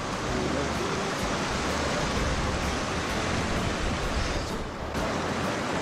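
Fast mountain stream rushing over rocks close by, a steady wash of water noise that turns briefly softer about four and a half seconds in.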